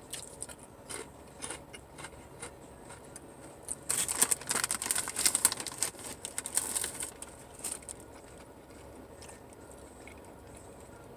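Close-up eating and food-handling sounds: scattered small clicks and crackles, with a denser stretch of crunchy crackling from about four to seven seconds in.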